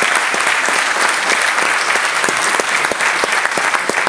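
Theatre audience applauding a stage cast: steady, dense clapping.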